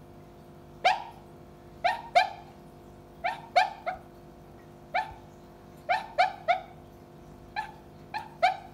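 Sleeping Maltese dog giving short, high yips and whimpering cries while dreaming, about a dozen of them, singly or in quick runs of two or three.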